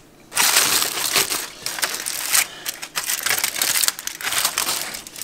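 Aluminium foil being crinkled and crumpled: dense, irregular crackling that starts about half a second in and runs for several seconds.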